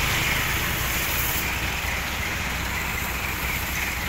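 Mitsubishi bus engine idling steadily, with the hiss of a garden hose spraying water onto the bus's side.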